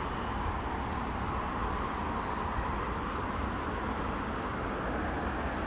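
Steady ambient background noise: a low rumble with an even hiss over it, unchanging and with no distinct events.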